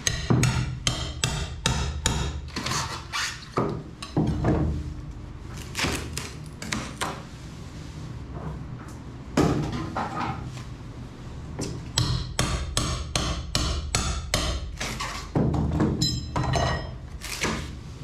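Hand tool chipping and prying fiberglass and foam off an overhead hull surface: a run of sharp, irregular knocks and cracks in quick clusters, over a low steady hum.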